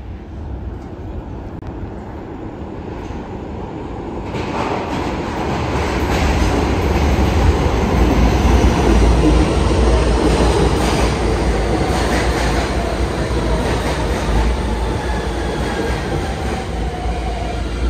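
New York City subway F train pulling into an underground station. A heavy rumble of wheels on rail swells about four seconds in and peaks as the cars pass, then a whine falls in pitch as the train slows.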